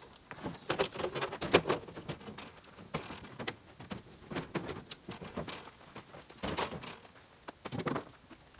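Scattered knocks, thumps and clatters of junk being set down and shifted around in the bed of a pickup truck, with a couple of louder thuds in the second half.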